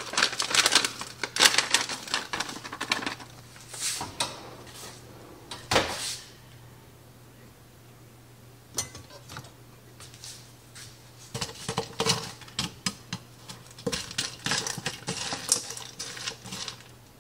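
Frozen mixed vegetables clattering into a skillet that is not yet hot, then a utensil knocking and scraping against the pan as the frozen clumps are broken up. There are clusters of sharp clicks at the start and in the last several seconds, a single knock about six seconds in, and a quieter lull in between.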